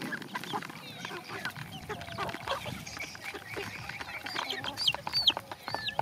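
A flock of young chickens clucking while they peck at feed from plastic plates, with many sharp pecking clicks. Near the end come a few loud, high, gliding calls.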